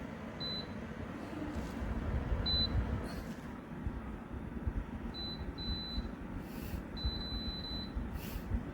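Electric space heater's control panel beeping at button presses: a series of short high beeps a second or more apart, with a longer beep near the end, over a steady low running noise.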